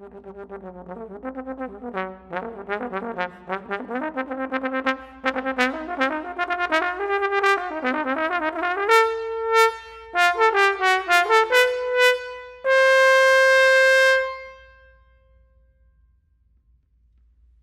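Trombone playing a fast run of short notes that climbs in pitch. It ends on a loud high note held for about a second and a half, the final note of the piece, which is cut off and rings away in the hall's reverberation.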